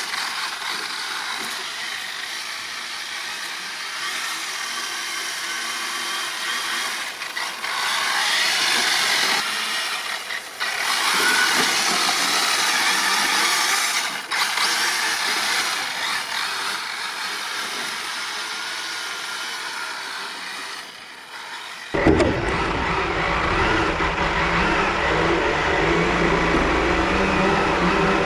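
Kyosho DRX VE electric RC rally car drifting on ice, its motor and drivetrain whining and the tyres hissing on the ice, rising and falling with the throttle. About two thirds of the way in the sound changes abruptly to a louder, deeper rattle and rumble.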